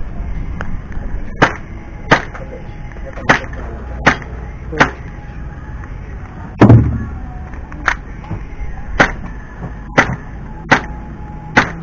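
Gas blowback airsoft Glock 17 pistol firing single shots in a timed drill: about ten sharp cracks, roughly one a second. One heavier thud with a short ring comes about two thirds of the way through.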